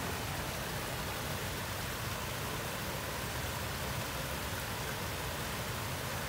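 Steady rushing and splashing of a small waterfall pouring over rocks into a koi pond.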